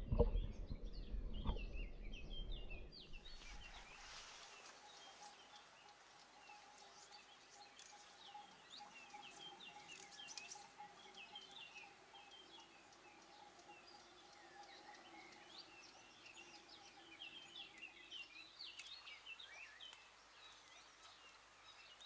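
Small birds chirping, many short calls throughout over faint outdoor background noise. A low rumble stops about three seconds in.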